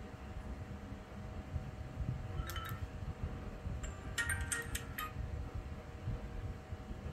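A Realme GT Master Edition phone's speaker playing short chiming preview tones as its volume sliders are moved: one brief tone about two and a half seconds in, then a quick run of several about four to five seconds in. A steady low rumble sits underneath.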